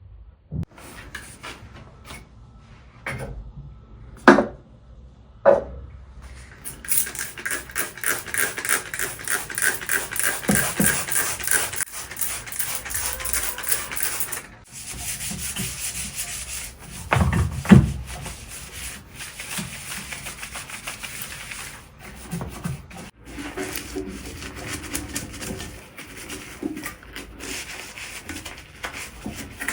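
Hand scrubbing of a hard surface while cleaning: a few knocks and clicks, then, about seven seconds in, fast back-and-forth scrubbing strokes that go on with short pauses. A loud thump comes a little past the middle.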